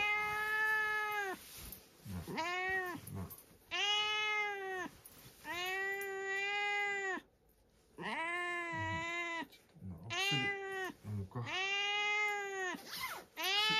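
A cat meowing over and over from inside a wire cage: a string of long, drawn-out meows, one every second or two.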